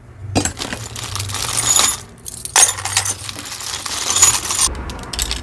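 Small pieces of costume jewelry clinking and jangling together as they are handled and dropped into a box, in two busy stretches with a short pause about two seconds in.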